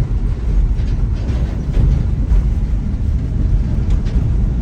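Steady low rumble of a moving car heard from inside the cabin: engine and tyre noise on the road, with a few faint knocks.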